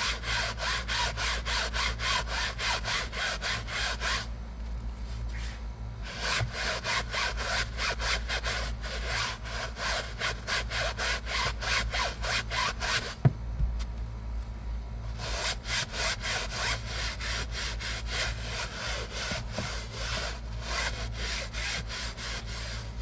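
Hand scrub brush worked back and forth over a wet fabric car seat in quick, even strokes, about four a second, stopping briefly twice. A single sharp click about thirteen seconds in.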